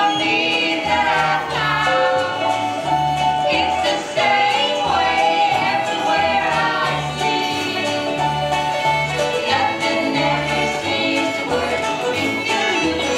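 Upbeat country song sung by a female vocal trio in harmony over a band, with a bouncing bass line underneath.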